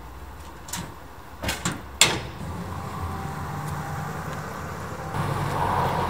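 A few sharp knocks, the loudest about two seconds in, followed by a vehicle engine running steadily, a little louder near the end.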